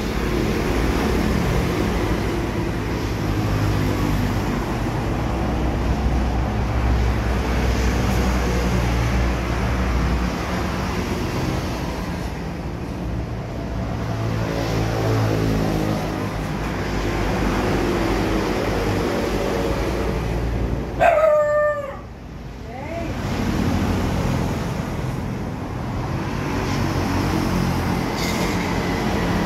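Road traffic going by, motorbike engines rising and fading as they pass. About two-thirds of the way through, a short, loud wavering tone cuts in.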